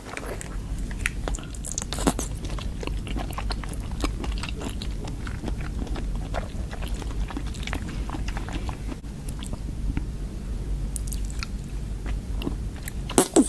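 Close-miked eating: biting and chewing with many small crunches and wet mouth clicks over a steady low hum, with a few louder crackles near the end.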